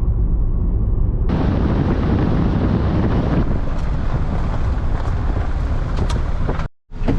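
Loud wind rush buffeting the microphone of a moving car, with the car's road noise underneath. It grows brighter and louder about a second in.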